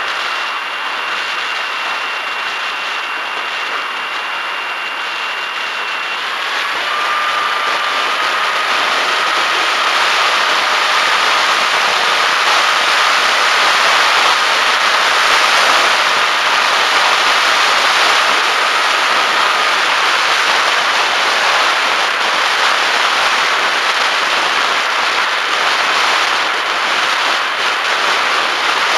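Electric motor and pusher propeller of a Bixler foam RC plane in flight, heard through its onboard camera: a thin steady motor whine over heavy air rush. The whine drops to a lower pitch about six seconds in, and the rush grows a little louder.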